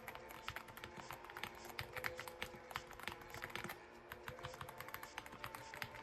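Typing on a MAGEGEE Light87 gasket-mounted mechanical keyboard with Blue Whale switches: a rapid, uneven run of keystroke clacks, several a second.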